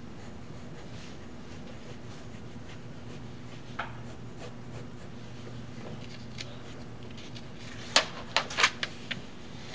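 Pencil lightly sketching on animation paper over a low steady hum. Near the end the sheets are lifted and flipped on the pegs, giving several sharp paper rustles and snaps, the loudest sounds here.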